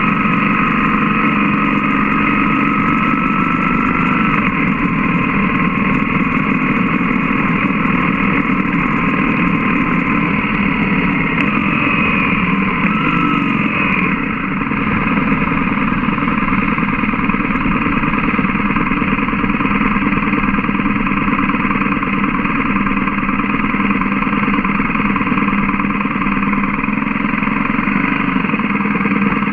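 BMW GS motorcycle's boxer-twin engine running steadily on the road, heard from a camera mounted on the bike.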